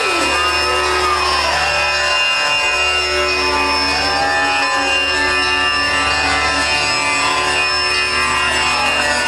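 Concert opening music over the venue's sound system: a steady drone of held tones with sliding, curving melody lines on top and a sustained deep bass underneath.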